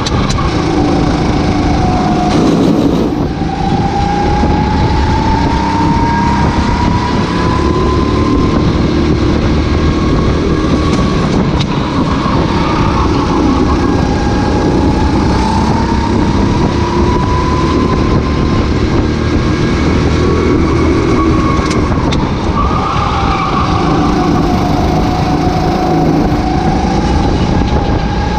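Racing kart engine at full race pace, heard onboard. Its pitch climbs steadily as the kart accelerates, then drops away as it slows for corners, three or four times over.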